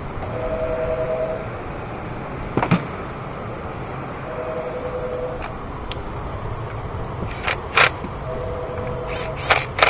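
Sharp clicks and knocks of parts and tools being handled at an engine bay, loudest near the end. Under them, a two-note beep about a second long sounds three times, once every four seconds.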